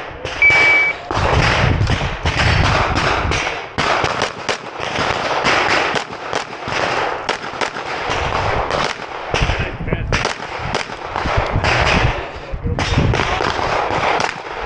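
A shot-timer start beep, then a long run of rapid 9 mm pistol shots from a Canik Rival, fired in strings with brief pauses between them.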